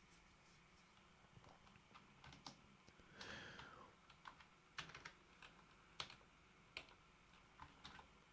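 Quiet, sparse clicks of computer keyboard keys, a few separate keystrokes. A little after three seconds in there is a brief sound that falls in pitch.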